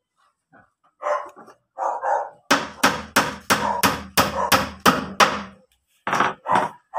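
A hammer striking a wooden panel of a table being assembled: a quick run of about nine blows, roughly three a second, then two more after a short pause near the end.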